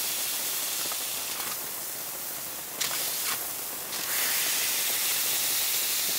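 Burger patties and onions sizzling on a hot plancha: a steady hiss that gets louder about four seconds in, with a couple of faint clicks near the middle.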